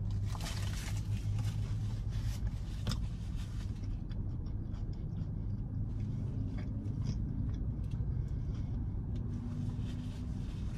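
Foil-and-paper burger wrapper crinkling for the first few seconds as a bite is taken, then quiet chewing, over a steady low hum inside the car, typical of the engine idling.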